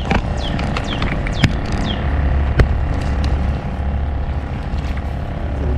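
Boat motor running with a steady low hum. Short, high, falling chirps repeat through the first two seconds, and two sharp clicks come in the middle.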